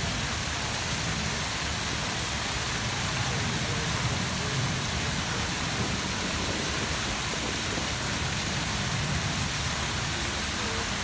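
Large ornamental fountains running: a tall central jet and many smaller jets falling back into the pool, a steady rush of splashing water with no break.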